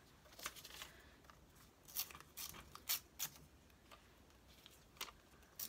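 Magazine paper cutouts rustling as they are handled and laid onto a page: several short, crisp rustles spaced through a quiet stretch.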